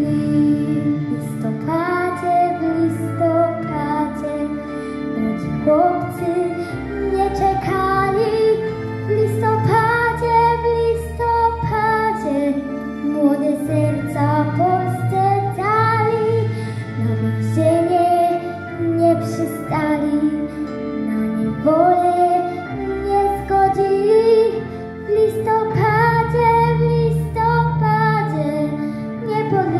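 A young girl singing a Polish song into a handheld microphone, her voice carrying the melody in long held phrases over an instrumental backing track with sustained chords and bass.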